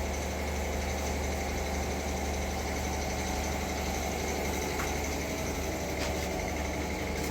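Electric piston air compressor running steadily with a low, even hum.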